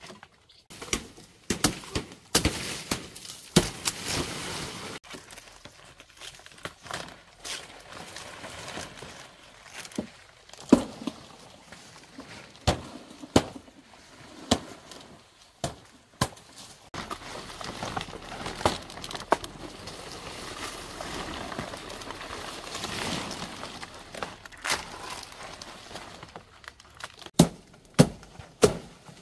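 Irregular knocks, thuds and clatter, with rustling and scraping between them, as of materials being handled and worked by hand.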